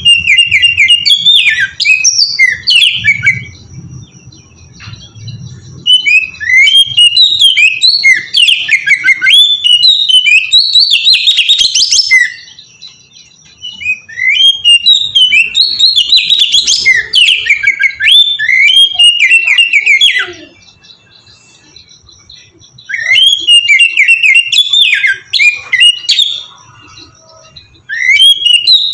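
Oriental magpie-robin (kacer) singing loud, clear song in bouts of rapid, varied whistled phrases, with pauses of about two seconds between bouts.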